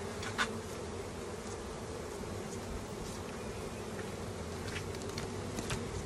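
Honeybees buzzing in a steady hum around an open hive, with a sharp click about half a second in and a few light clicks near the end.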